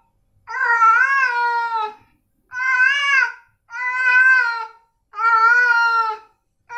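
Scottish Fold cat meowing over and over: four long meows of about a second each with short pauses between, the pitch wavering within each, and a fifth meow starting near the end.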